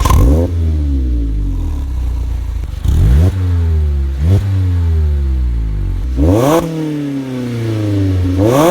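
Mazda MX-5 ND's four-cylinder engine revved through a Fox stainless-steel sport exhaust: about five quick throttle blips, each rev climbing fast and falling slowly back to idle.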